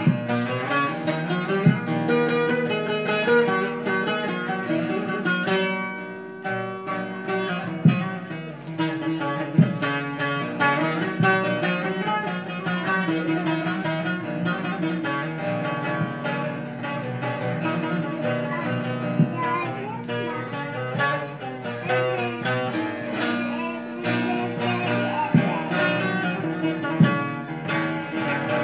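Long-necked bağlama (uzun sap saz) with a carved walnut body, played solo: a continuous instrumental melody of rapid plucked notes with occasional sharp accented strokes.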